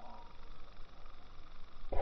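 Faint background noise with a low rumble and a faint voice, then a loud drawn-out shout or yell starts right at the end.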